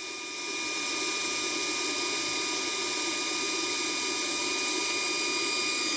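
Handheld induction bolt heater running steadily: an even fan-like hum with constant high-pitched whining tones. It is heating a broken-off exhaust manifold stud in the cylinder head.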